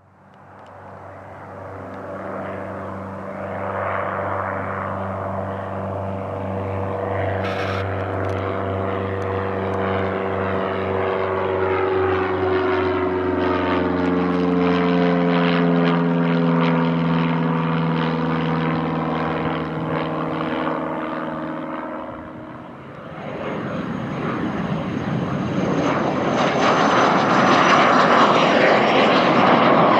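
Light single-engine propeller plane flying overhead: a steady propeller drone whose pitch falls as it passes. About 23 s in, the sound changes to a Cirrus Vision SF50 single-engine jet passing low with gear down: louder turbofan rushing with a faint high whine.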